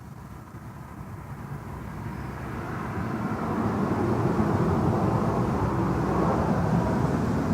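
Rumbling noise of a passing vehicle, growing steadily louder over the first four seconds and then holding.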